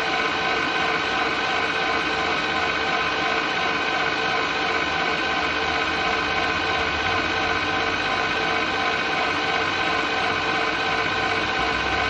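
Mini Angel 5-quart stand mixer's motor running steadily: a constant mechanical whir with an even whine that neither rises nor falls.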